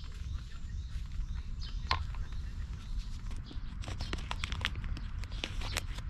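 A knife shaving a wooden stick into kindling, then a quick run of sharp clicks and crinkles as a plastic rice pouch is cut open in the second half.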